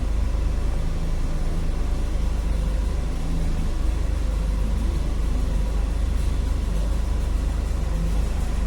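Perodua Viva 1.0 three-cylinder engine idling steadily, a low even rumble.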